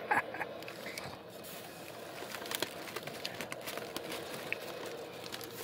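Quiet chewing of french fries, with scattered small clicks and crunches over a steady low room hum.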